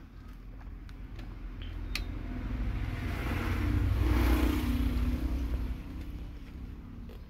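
A passing motor vehicle's engine rises to a peak about four seconds in and fades away, over the sizzle of spring rolls frying in a wok of oil. Light clicks of chopsticks come near the start.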